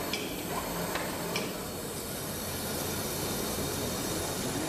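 Steady machinery din on a steel foundry floor, with a low hum underneath, and a few short metallic clinks in the first second and a half.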